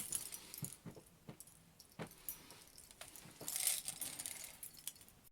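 Scattered clicks and a light rattle from handling a CYMA M4A1 airsoft rifle as it is put back together after the battery is removed. A sharper click comes about two seconds in and a short jangling rattle near the end.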